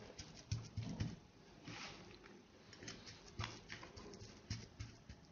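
Fingers pressing and patting buttery crushed-biscuit crumbs into a parchment-lined cake tin: faint, irregular soft pats and rustles of the baking paper.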